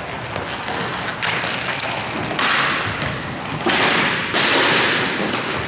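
Roller hockey play on a sports-hall court: sticks tapping the ball and thuds, among rushes of hissing noise about a second long, several times over.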